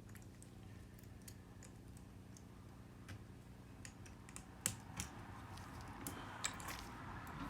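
Scattered faint clicks and ticks of tools and small parts being handled while an iPhone 7's loudspeaker module is fitted back into the phone, with the two sharpest clicks close together about two thirds of the way through.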